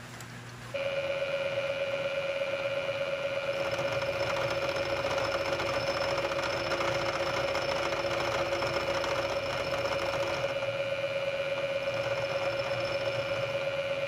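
Bridgeport milling machine starting up about a second in, then running with a steady whine as its inserted face mill cuts across the end of a cast brass door handle.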